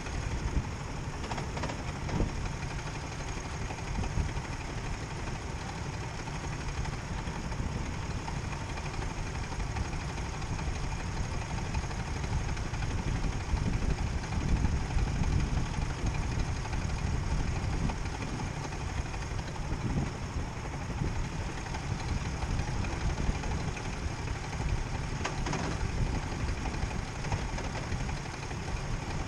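Sodi RT8 rental go-kart engines idling steadily while the karts wait in a queue, a low, even chugging.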